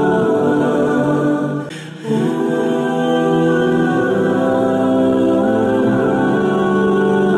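Background music of long-held, choir-like voices, with a brief drop-out about two seconds in.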